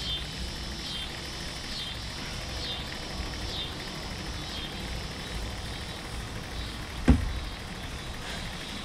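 A small electric fuel pump running dry with a low hum, drawing no fuel from the boat's tank, which the owner takes to be empty or clogged. Over it a high buzz pulses about once a second, and a single sharp knock comes about seven seconds in.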